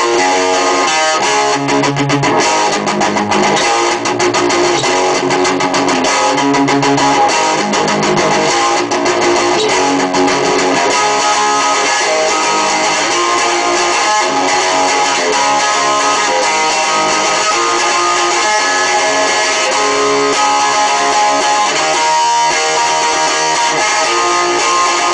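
Electric guitar playing continuously, a steady stream of notes with no pauses.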